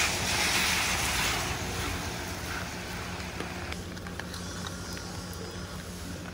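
Steady low hum of a frozen-food vending machine, with a vehicle going by in the first two seconds. A few light clicks follow as a banknote goes into the bill slot.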